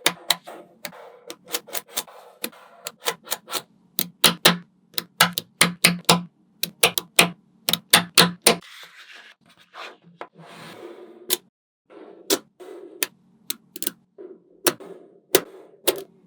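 Small magnetic balls clicking sharply together as they are snapped into place one by one, in an irregular run of clicks, with a softer rustle of balls around the middle.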